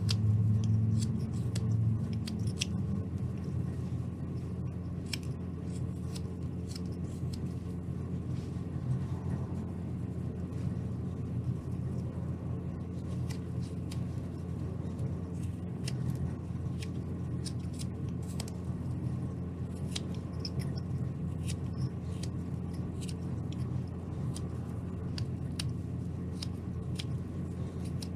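Carving knife paring thin chips off a basswood ball: irregular short scraping cuts. A steady low hum runs underneath, louder in the first couple of seconds.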